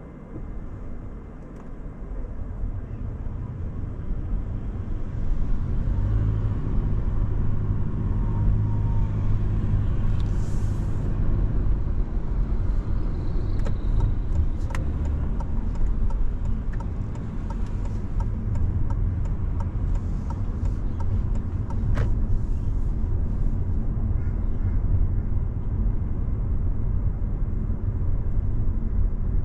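Car driving along a road: low engine and tyre rumble growing louder over the first five seconds or so, then steady. A brief hiss about ten seconds in and a scattering of faint clicks around the middle.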